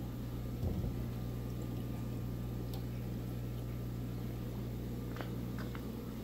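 Steady electrical hum of a fish room's water pumps and filters running, with a low thud about a second in and a few faint clicks near the end.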